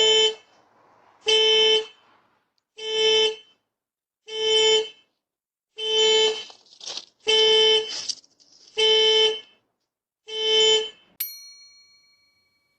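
Car horn sounding in eight long, evenly spaced blasts, one about every second and a half. Near the end comes a sharp click followed by brief high ringing tones that fade out.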